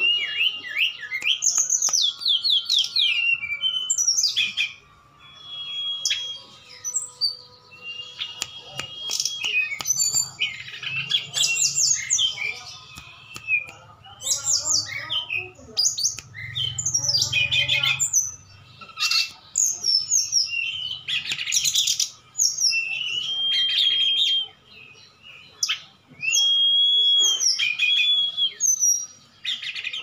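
Caged songbirds, an SRDC (sikatan rimba dada coklat) and a tledekan gunung, singing against each other in a duel: a fast run of high whistled notes, quick sweeps and trills, phrase after phrase with short pauses between them.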